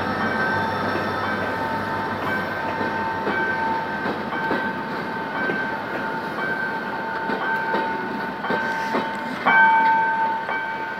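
Passenger coaches behind a GM GT-22CW-2 diesel locomotive rolling past as the train pulls out of the station, their wheels clacking over rail joints. High squealing tones come and go throughout, loudest for a moment about nine and a half seconds in.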